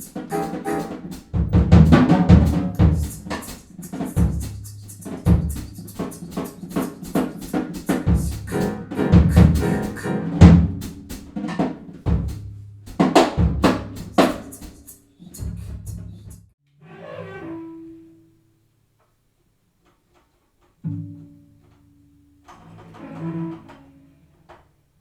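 Free improvised music: a drum kit plays dense, irregular strikes over a low held tone, stopping about 16 seconds in. After a pause, a few short, quiet held notes sound near the end.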